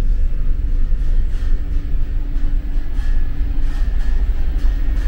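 Steady low rumble of a car ferry's engines and hull vibration heard from inside the ship, with faint regular footsteps and faint steady electronic tones from arcade machines.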